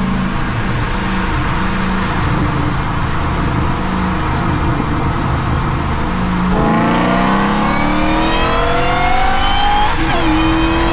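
Cabin of a Tesla Model Y at speed: steady road and tyre noise. About six and a half seconds in, the cars launch into a race and a whine climbs steadily in pitch for several seconds. Near the end it drops sharply and climbs again, the sign of an upshift by the Ford Mustang racing alongside.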